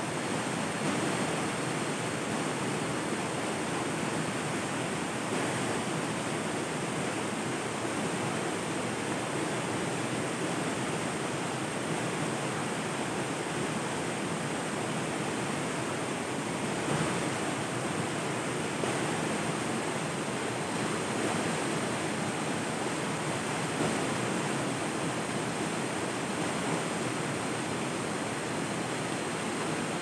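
Flowing river water rushing steadily, an even hiss with no pauses.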